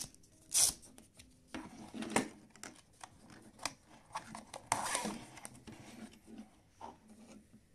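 Handling noise from threading a strap through a plastic VR headset: scattered light clicks and taps with short rustles, and a longer scraping rustle about five seconds in.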